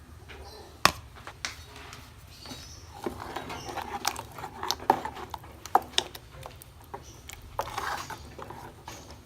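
Spoon clinking and scraping against a cooking pot and jar while ground roasted coconut paste is added to the chicken, with one sharp knock about a second in and scattered clicks after.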